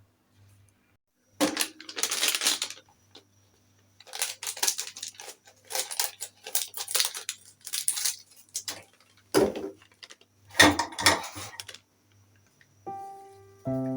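Irregular bursts of clattering and scraping as small household objects are handled, in several separate spells. Background music with sustained notes comes in near the end.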